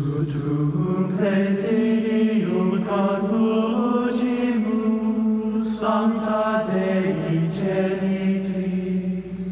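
Slow choral chant music with long held notes that step gently from one pitch to the next.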